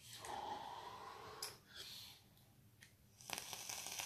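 A faint breathy exhale of vape vapour after a draw on a mechanical mod and dripper. This is followed by a few soft clicks and brief handling noise.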